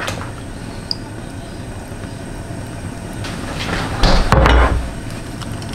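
A kitchen cupboard being opened and shut while sauce bottles are fetched, the loudest knock and rustle coming about four seconds in.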